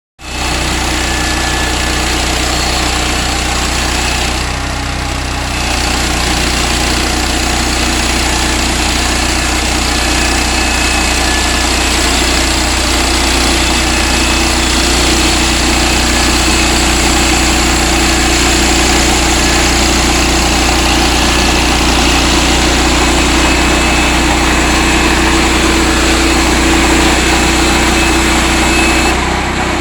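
Sawmill machinery running with a steady engine drone. The level dips briefly about four to five seconds in, and a humming tone grows stronger through the second half.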